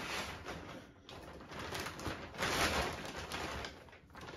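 Crinkling rustle of a large plastic bag being rummaged through by hand, in two stretches, the second one louder, fading out near the end.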